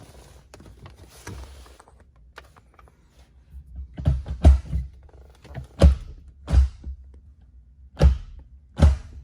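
Six dull thuds, irregularly spaced over the second half, after faint rustling and handling noise.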